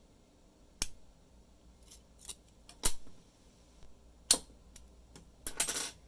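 Sharp metallic clicks of picking tools working a challenge lock: a few single clicks a second or two apart, then a short rattling cluster near the end as the pick finishes.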